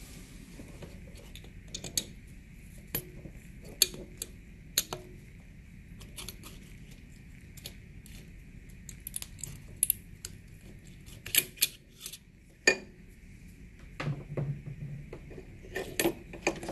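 Scattered small clicks, taps and scrapes of plastic and metal as a screwdriver and fingers work a PTC starter relay loose from a mini-fridge compressor's terminal pins and wire connectors. The clicks come irregularly, with a tighter cluster near the end.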